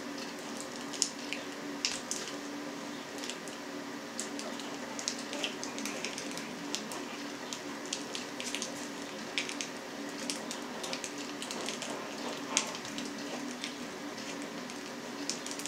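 Soft scattered crackling and clicking of sausage meat being pressed from a vertical piston sausage stuffer into a 35 mm natural pork casing, over a steady low hum.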